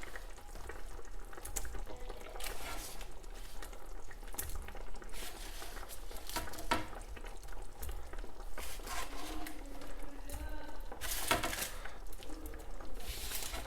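Cooked chicken meatballs being added to hot tomato sauce in a pot and stirred in: irregular wet plops, splashes and stirring sounds, with a louder cluster about eleven seconds in.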